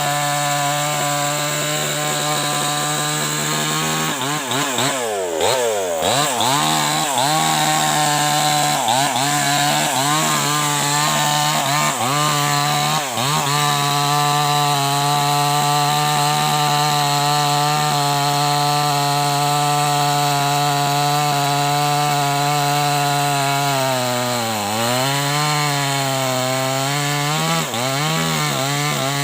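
Maestro 6500L two-stroke chainsaw running at high speed while cutting acacia wood. Its engine note dips and recovers repeatedly under the load of the cut, and sags most deeply about 25 seconds in.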